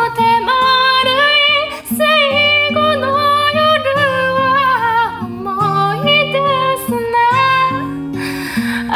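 A woman singing a slow ballad melody with wavering held notes, accompanying herself on an acoustic guitar whose chords ring under the voice.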